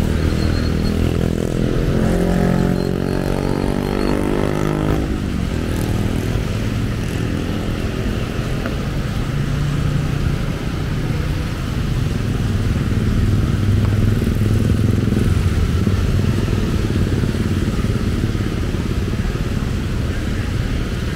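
Road traffic of motorcycles and cars passing on a wet road. In the first few seconds one engine rises and falls in pitch, and a low engine drone swells in the middle.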